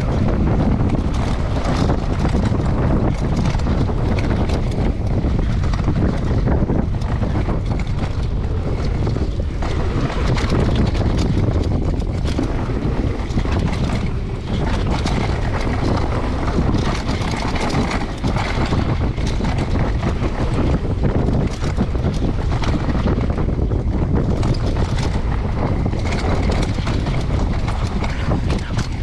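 Wind buffeting an action camera's microphone on a downhill mountain-bike run, over tyres rolling on a dirt trail and the bike rattling with many small knocks over bumps.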